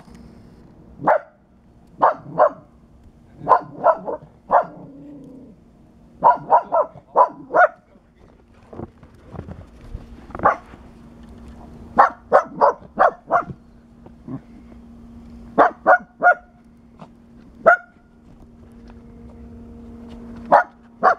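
Small black dog barking: short, sharp barks in quick runs of two to six with pauses between.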